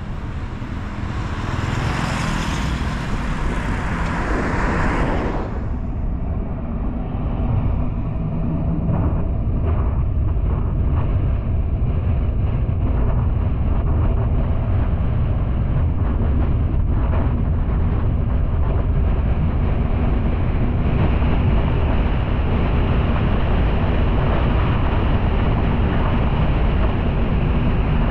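Car being driven: a steady low rumble of engine and tyres on the road. A louder rushing hiss for the first five seconds or so cuts off suddenly.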